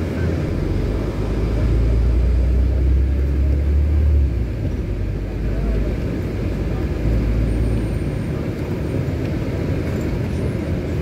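Steady low rumble of a city bus's engine and running gear, heard from inside the passenger cabin while it drives. The drone swells twice.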